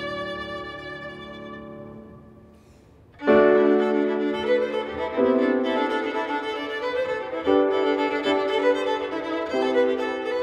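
Violin and grand piano playing together. A held chord dies away over the first two to three seconds, then the violin comes back in loudly with a new phrase of long bowed notes over the piano.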